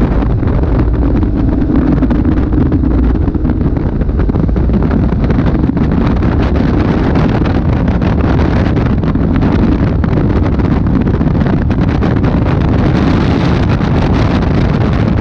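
Caterham Super 7 driven at speed with its engine running, heavily overlaid by wind buffeting the microphone in the open cockpit.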